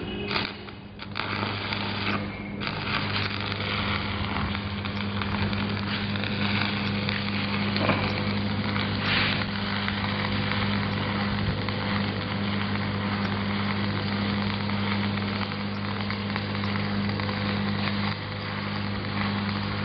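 Shielded metal arc (stick) welding on thin 12-gauge sheet steel: the arc sputters for about the first second, then crackles and sizzles steadily, over a steady hum from the welding machine.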